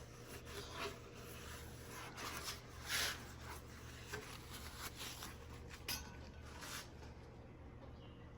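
Faint rubbing and light handling noises: a few soft swishes and scrapes with a couple of sharp clicks, the clearest about three seconds in and near six seconds.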